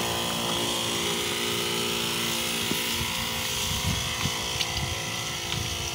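Knapsack sprayer's electric pump running steadily, with the hiss of pesticide spray from the lance nozzle.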